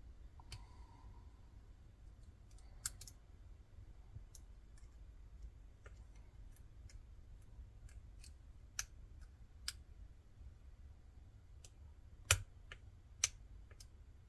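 Faint, scattered metallic clicks of a lock pick and tension wrench working the pin stacks of a six-pin Weiser pin-tumbler lock, the last pins setting; the two loudest clicks come near the end.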